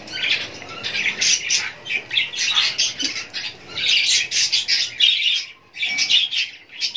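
Indian ringneck parakeets squawking: a rapid run of harsh, loud calls with a brief break about five and a half seconds in.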